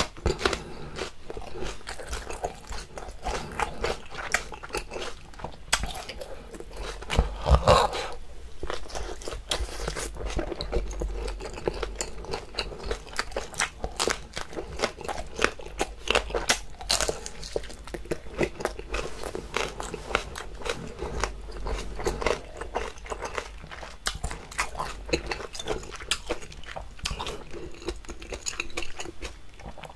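A person chewing and biting cooked octopus close to the microphone, heard as a continuous run of small mouth clicks with a louder burst about seven and a half seconds in.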